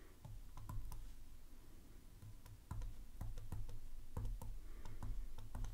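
Faint, irregular clicks and taps of a stylus on a tablet screen as numbers are handwritten, over a low hum.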